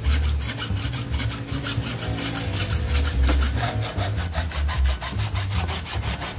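Hand hacksaw cutting through PVC pipe, the blade rasping back and forth in quick, even strokes.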